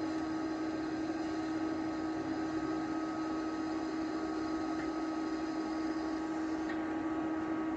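TIG welding arc from a YesWelder TIG 205-DS set at about 73 amps, laying a flat bead on steel with ER70S-6 filler rod: a steady hiss with a constant hum.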